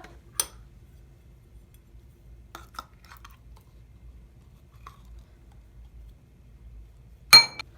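Quiet handling of a container and bowl: a few soft clicks and taps, then near the end one sharp clink with a short ring as the bowl is knocked or set down.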